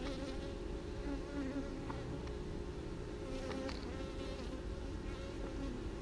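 Many honeybees flying close by, a steady hum of wingbeats whose pitch wavers gently.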